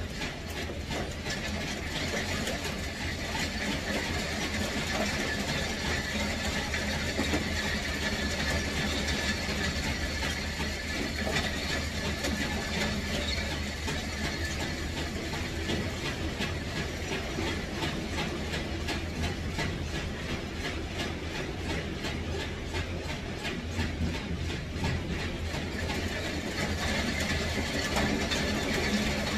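Steady mechanical running noise: a continuous low hum with rapid, dense clicking over it.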